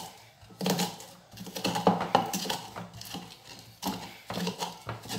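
Wooden pestle pounding and grinding garlic cloves with coarse salt and black pepper in a small wooden mortar: repeated dull knocks, irregular, about two a second.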